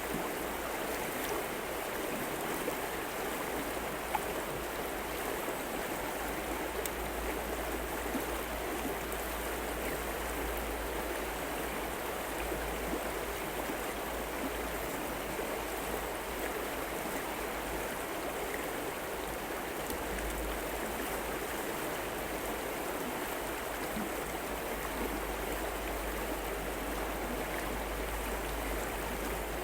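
River water flowing, a steady even rushing that does not change.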